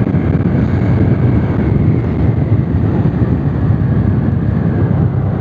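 Steady rumble of a scooter ridden at road speed: wind rushing over the handlebar-mounted microphone, with the engine and tyres running beneath it.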